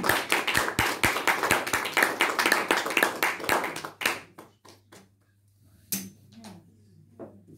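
Audience applause in a small room, dying away about four seconds in to a few scattered claps. About six seconds in there is a single light knock as an acoustic guitar is set in its stand.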